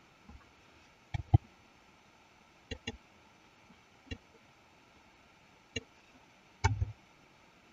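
Computer mouse buttons and keyboard keys clicking: sharp single clicks and quick pairs, with a short flurry of clicks near the end.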